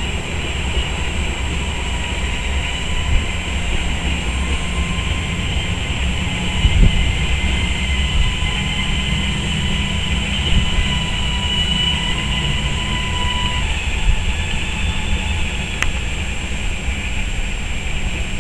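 Rhaetian Railway passenger train running around the tight curve of the Brusio spiral viaduct, its wheels squealing in steady high tones over a low rumble. The squeal fades out about three quarters of the way through.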